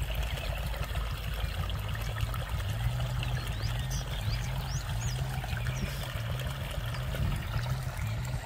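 Water running out of a garden hose into an armadillo's burrow, pouring and trickling steadily as it floods the tunnel. A steady low hum runs underneath, with a few faint high chirps about midway.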